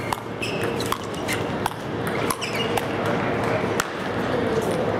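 Murmur of a crowd in a large hall, broken by sharp clicks and several brief, ringing pings.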